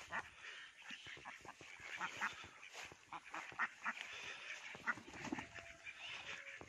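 A flock of domestic ducks quacking, many short calls in quick, overlapping succession.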